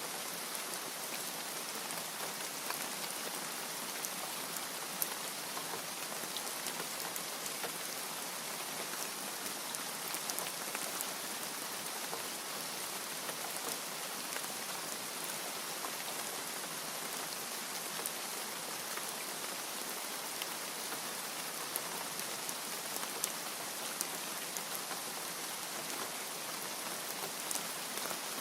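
Steady rain falling, an even hiss dotted with many small, sharp drop ticks on a hard surface, with no thunder.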